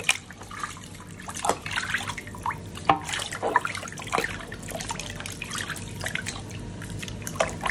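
Water splashing and dripping in irregular small splashes as raw chicken pieces are rinsed by hand in a large wok of water.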